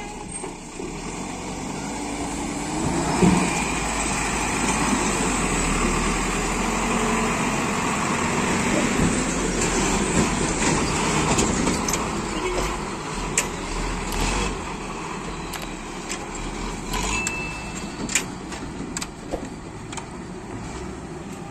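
Heavy goods truck's diesel engine running as it pulls up from the ferry ramp and drives past close by, swelling over the first few seconds. In the second half it eases off, with scattered sharp knocks and rattles.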